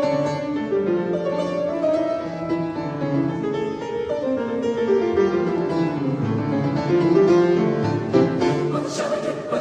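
Background music: an instrumental piece played on a keyboard instrument.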